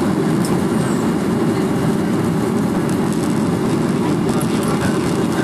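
Steady noise of a commercial jet's engines and rushing air heard inside the passenger cabin while the airliner climbs after takeoff, deep and even with no changes.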